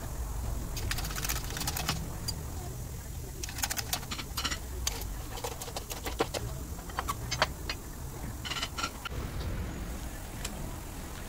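Irregular groups of sharp metallic clicks and clinks as a steel sleeve, shaft and new bearing are handled and pressed together on a press bed to fit the bearing onto a power steering pump shaft, over a low steady rumble.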